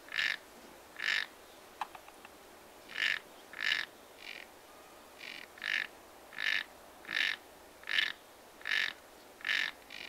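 A frog calling: a short, fairly high call repeated over and over about every three-quarters of a second, with a pause of a second or so near the start. A faint sharp tick about two seconds in.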